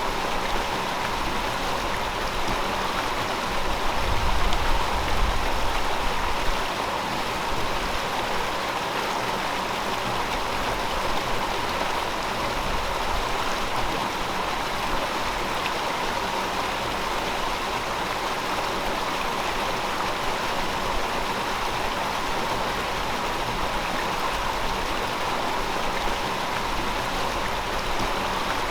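A river flowing steadily over rocks, an even rushing and babbling of water, with some low rumbling swells about four to six seconds in.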